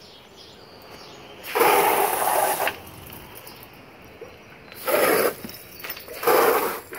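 Three short bursts of water spray from a garden hose nozzle. The first lasts about a second, the other two about half a second each.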